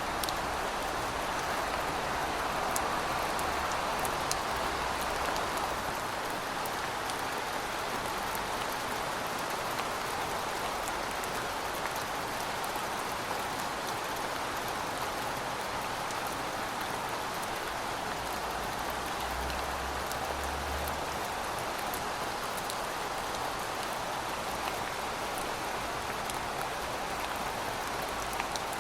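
Steady rainfall, an even hiss with scattered faint drop ticks on top.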